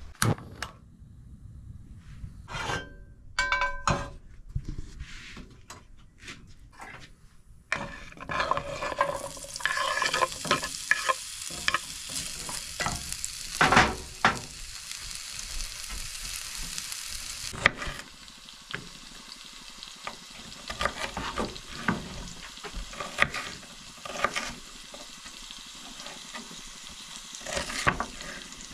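Diced potatoes sizzling in a cast iron skillet, a steady hiss that starts about a third of the way in and cuts off abruptly a little past the middle. Before it come scattered knocks and clicks; after it, intermittent taps of a knife chopping peppers on a wooden cutting board.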